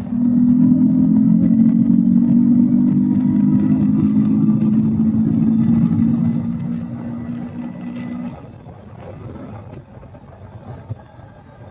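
Honda Tornado 300 motorcycle engine running steadily at speed. It eases off from about six seconds in and drops away about eight seconds in, leaving quieter road noise.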